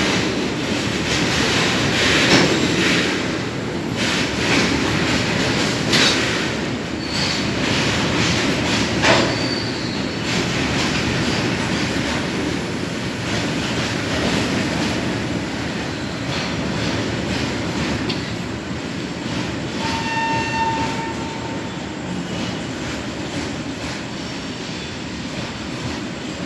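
Freight train hauled by a WAG-9 electric locomotive running along the track with a steady rumble, wheels knocking over rail joints in the first ten seconds, slowly getting quieter. A short pitched tone sounds briefly about twenty seconds in.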